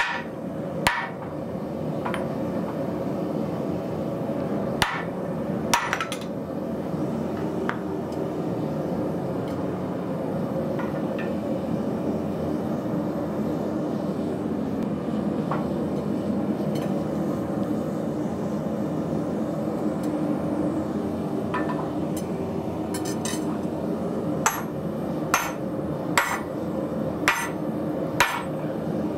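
Hand hammer striking a red-hot piece of heavy-wall steel tubing on a swage block. A few scattered blows come in the first eight seconds, then a quicker run of about six blows near the end, over a steady background hum.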